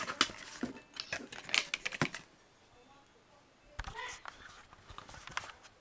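Hands handling a glossy ceramic coffee mug with a metal knuckle-duster handle: a run of light clicks, taps and rustles. There is a pause of about a second and a half midway, then more taps as the mug is set upright.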